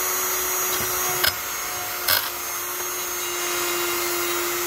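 Dremel rotary tool running at a steady speed, its bit working against the brass boiler end of a Mamod steam engine to clean it up. Two sharp clicks come a little over a second in and again about two seconds in.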